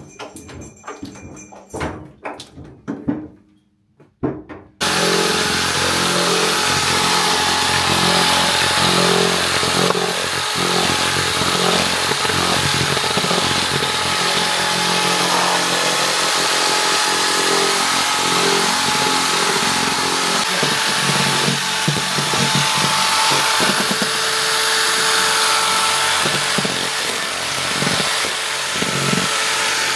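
A few knocks, then about five seconds in an electric drill fitted with a whisk attachment starts and runs steadily, whipping egg whites in a plastic bowl into a stiff foam.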